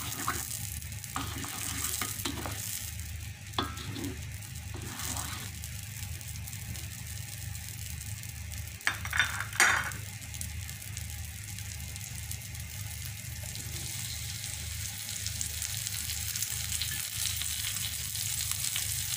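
Melted margarine sizzling in a wok, with a spatula stirring it at first. A few short clatters break in, the loudest just before ten seconds in.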